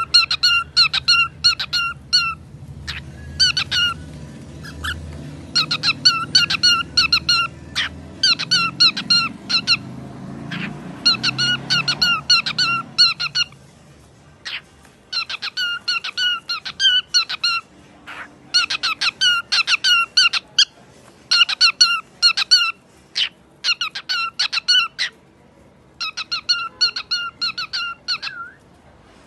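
A pet parrot making rapid, repeated squeaky chirps. They come in runs of several quick notes, with short pauses between the runs.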